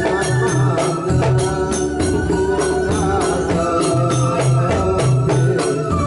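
Ndolalak ensemble playing an instrumental passage: an electronic keyboard holds an organ-like melody over a steady beat of hand-played barrel drums and frame drums, about three to four strokes a second.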